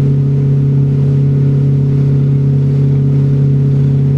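A small boat's engine running steadily under way, a constant low drone that does not change in pitch or level.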